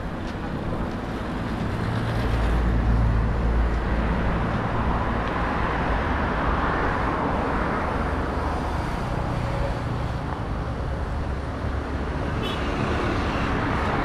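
Road traffic along a main road: the steady hiss and rumble of passing vehicles, growing louder about two seconds in as a vehicle goes by close and staying at that level.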